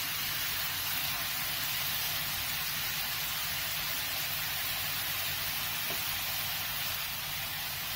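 Mushrooms sizzling steadily in a frying pan on high heat, in oil and the water they have released.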